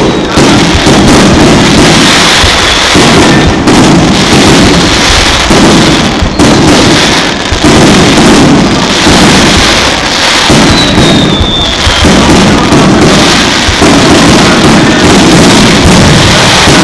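Aerial firework shells bursting in rapid succession: overlapping booms and crackle, very loud and without a break. A brief falling whistle comes about eleven seconds in.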